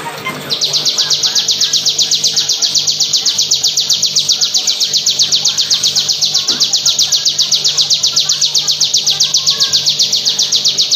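Bar-winged prinia (ciblek) singing its 'bren': one long, unbroken trill of rapid, evenly spaced high notes. It starts about half a second in and runs for about ten seconds.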